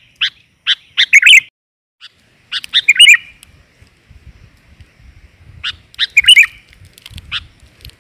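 Sooty-headed bulbul (kutilang) calling: three bursts of quick, sharp chirping notes, each ending in a short trill, a few seconds apart. This is the call played to lure males.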